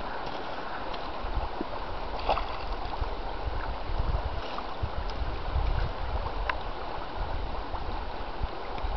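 Shallow river riffle running over stones: a steady rushing of water, with uneven low rumbles of wind on the microphone now and then.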